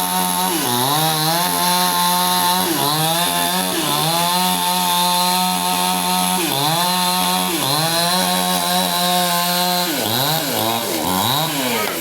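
Stihl two-stroke chainsaw running at high revs while cutting wood. Its engine note sags and climbs back about five times as the chain bites into the log, with several quicker dips near the end.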